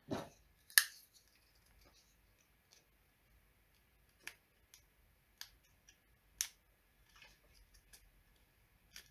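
Sparse, sharp plastic clicks and light scrapes as a metal blade pries at a plastic inline fuse holder to free its glass fuse. The loudest click comes about a second in, with a few more between four and six and a half seconds.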